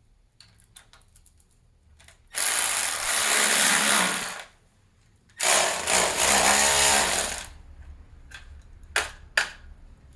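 Two loud bursts of rushing, whirring shop-tool noise, each about two seconds long, followed by a few sharp clicks near the end.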